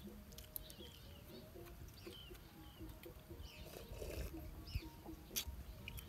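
Faint birds chirping, with scattered soft clicks of chopsticks against a coconut shell and a short slurp about four seconds in as coconut water is drunk from the shell.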